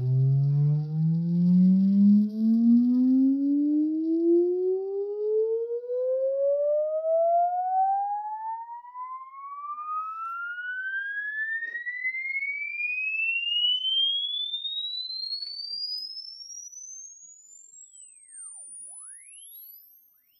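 Audio frequency sweep test tone played through a Grundig Satellit 3000 radio's loudspeaker, received by FM from a Doosl DSER107 transmitter fed by a smartphone. A single pure tone glides steadily upward from a low hum to a very high whistle, with some extra overtones while it is low. It grows fainter over the last few seconds as it climbs toward the top of the FM audio range.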